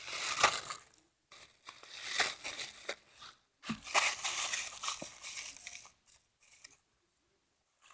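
Crumpled scraps of paper bag crinkling as they are stuffed and pressed down into a paper squishy, in three stretches of rustling, the last ending about six seconds in.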